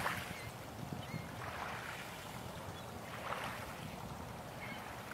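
Small waves lapping onto a pebble shore, each wash rising and falling about every second and a half, over a low steady rumble.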